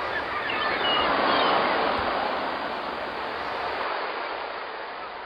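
Ocean surf, a wash of waves that swells over the first second and a half and then slowly fades away.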